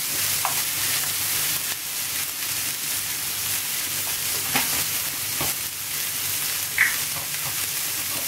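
Onions and mixed vegetables frying in coconut oil in a pan, a steady sizzle, stirred with a few light knocks against the pan.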